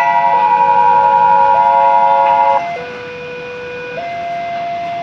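A railway warning alarm sounding two electronic tones, low and high, alternating every second or so. Over it, sustained bell-like ringing tones hold on and cut off suddenly about halfway through.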